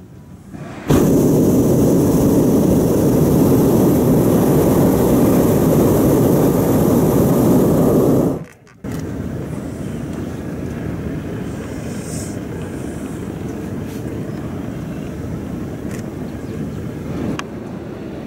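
Hot-air balloon's propane burner firing overhead, a loud steady roar that starts abruptly about a second in and cuts off just after eight seconds. After a brief gap a quieter steady rushing noise follows.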